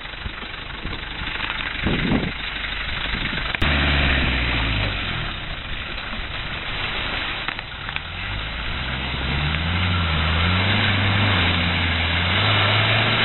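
Land Rover 90's engine pulling the vehicle through mud. A low engine note comes in sharply about three and a half seconds in, rises as the engine revs up a few seconds later, then holds steady.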